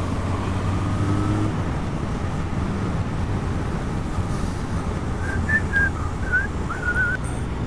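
Motorcycle engine running at a steady speed with wind noise on the bike-mounted microphone, heard from the bike while riding. A few short high chirps come in from about five seconds in.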